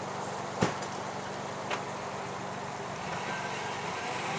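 A vehicle engine idling steadily, with one sharp knock a little over half a second in and a fainter knock about a second later.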